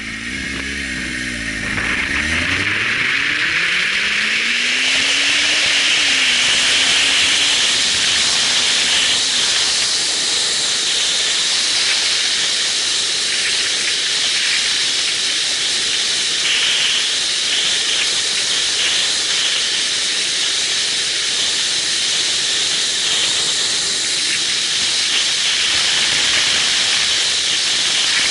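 Motorcycle pulling away from a standstill, its engine revving up in a few rising strokes through the first gears. After about four seconds a steady rush of wind on the microphone at road speed covers the engine.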